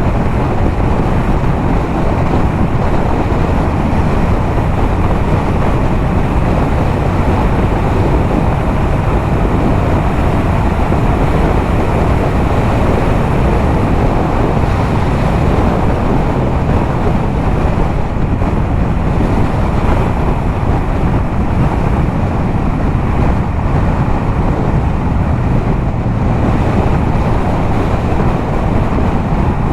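Yamaha MT-07's 689 cc parallel-twin engine running at steady highway speed through an aftermarket LeoVince exhaust, with heavy wind rushing over the helmet-mounted camera's microphone.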